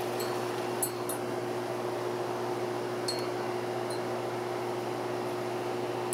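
Steady mechanical hum with one constant tone, with a few short, high, ringing pings over it.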